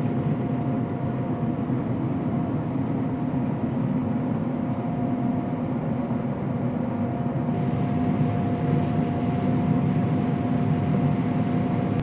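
Combine harvester running, heard from inside its cab: a steady machine drone with a constant whine held over it.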